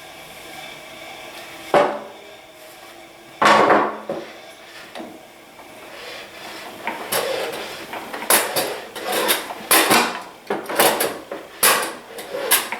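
DeWalt 735 planer fitted with a Shelix helical carbide cutterhead running steadily, overlaid with wooden knocks and clatter from a board being handled and fed; a sharp knock about 3.5 seconds in, then a rapid run of irregular knocks in the second half.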